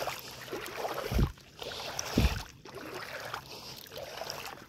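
Footsteps wading through shallow seawater, with irregular sloshing and swishing of water, and two dull low thumps about a second and two seconds in.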